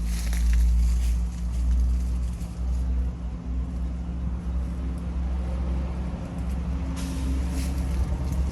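Steady low rumble with a faint hum underneath, and a few brief rustles or clicks near the start and near the end.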